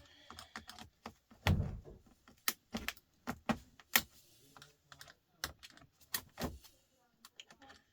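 Irregular light clicks, taps and clinks of screws and small metal and plastic parts being handled and knocked together while a TV is taken apart.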